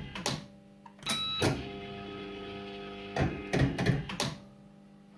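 Firecracker fruit machine in play: several sharp clunks, two close together about a second in and a quick cluster past the middle, over steady electronic tones from the machine.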